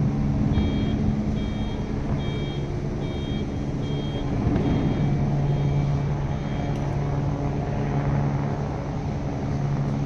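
Toei hybrid city bus running at low speed, its engine a steady hum, while a run of about eight evenly spaced electronic warning beeps, about one and a half a second, sounds and stops about seven seconds in.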